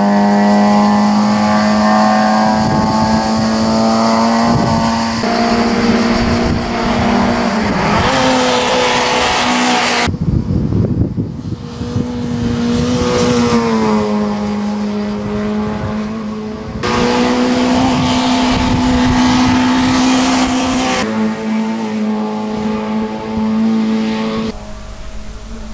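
Peugeot 205 race car's four-cylinder engine running hard at high revs as it climbs past, its pitch stepping down and up several times. The sound cuts off and restarts abruptly a few times.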